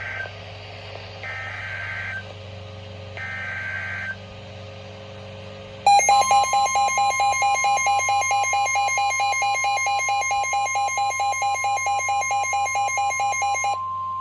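Emergency Alert System tornado warning opening: the end of one digital header burst and then two more warbling data screeches, each about a second long with a second's pause between. A loud pulsing alarm tone then sounds over a steady high attention tone for about eight seconds; the pulsing stops near the end and the steady tone carries on.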